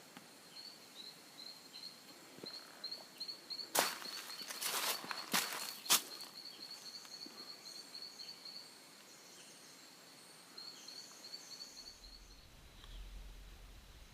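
Footsteps through bush undergrowth, with a few sharp crunches or snaps between about four and six seconds in, over a high, fast-pulsing trill that stops near the end.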